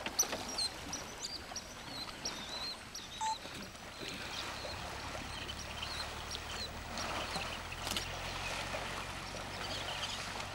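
Birds chirping in short repeated calls, over faint splashing of water as elephants bathe in the pond; a low steady hum comes in about four seconds in.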